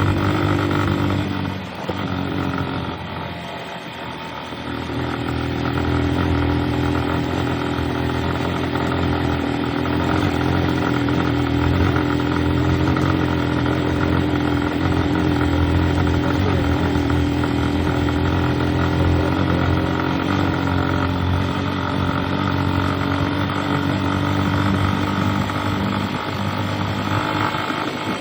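Vehicle engine running steadily while travelling. It eases off briefly a couple of seconds in, then pulls steadily again.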